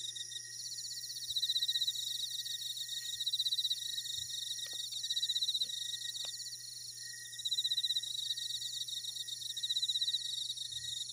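A chorus of crickets chirping, a fast pulsing high trill that swells louder for about a second at a time every few seconds over a steady high-pitched drone.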